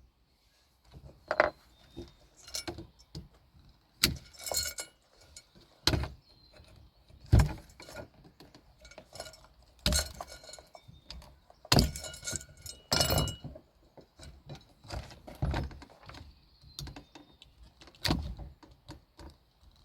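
Metal parts of a garage door opener being handled and taken apart: irregular knocks, clinks and rattles, several of them ringing briefly.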